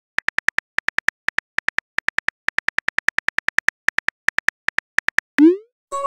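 Phone keyboard click sound effects tapping out a text message in quick runs of short clicks. About five seconds in comes a brief rising whoosh, the message-sent sound.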